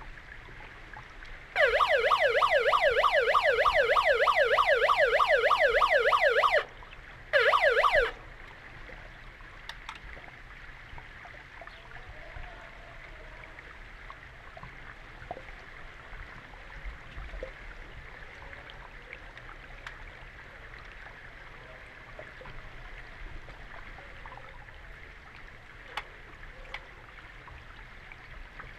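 Underwater signalling siren heard through the water: a fast warbling yelp, rising over and over about five times a second, sounds for about five seconds, then a short second blast. After that only a soft underwater hiss with scattered faint clicks.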